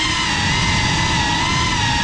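FPV racing drone's brushless motors and propellers whining in flight, the pitch wavering slightly with throttle, over a rushing wind and prop-wash noise.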